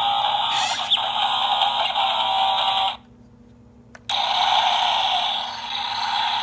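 Electronic sound effect from a CAT Machines toy bulldozer, played through its small built-in speaker as a tinny, steady sound. It cuts off about three seconds in, then starts again about a second later.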